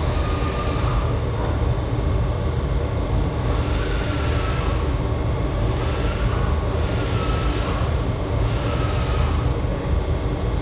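A steady low machine rumble fills the workshop air. Over it come soft swishing strokes every couple of seconds as a hand-held tool is drawn over the body filler on a car door panel.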